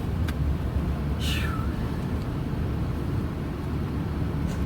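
Steady low road rumble inside a moving car, with one short, high-pitched hiccup about a second in that falls slightly in pitch.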